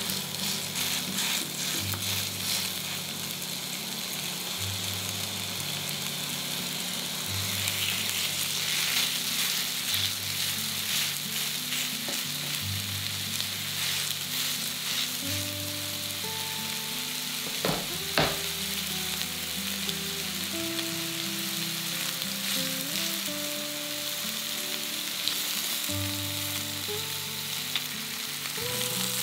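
Patties of chopped pork sizzling steadily in hot olive oil in a frying pan, with a couple of light knocks about 18 seconds in. Soft background music plays underneath.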